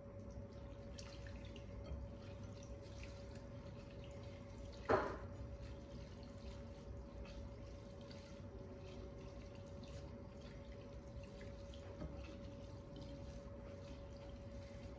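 Faint wet squishing and dripping as a bare hand squeezes and lifts cooked noodles in a glass bowl of liquid, with one sharp knock about five seconds in and a smaller one near the end.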